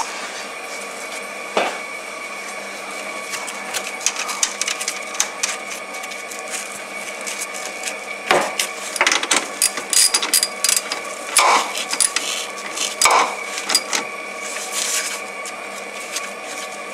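Scattered clicks, knocks and light metallic clinks of hand work on a car's 12-volt fuse box: a cable terminal and nut being fitted onto the bus, over a steady hum.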